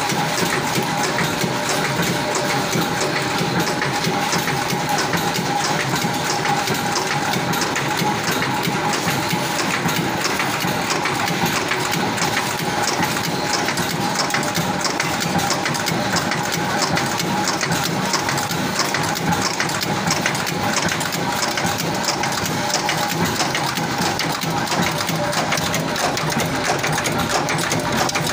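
Nut-making machinery running steadily: a dense, fast mechanical clatter over a steady hum, with no let-up, from wire-fed nut-forming machines on a factory floor.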